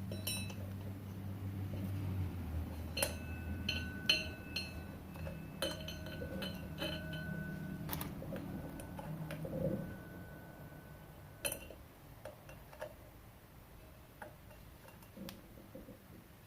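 Small metal bolts and hardware clinking and rattling as they are sorted through, with sharp clicks and brief ringing tones. A low steady hum runs underneath and fades out about ten seconds in.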